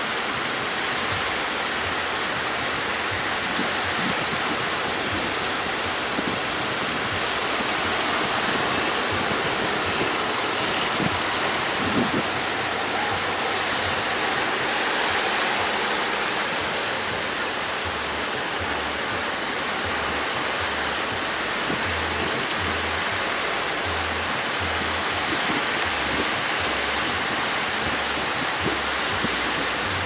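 Heavy surf: large waves breaking and churning around the boats in a steady, continuous wash of water noise.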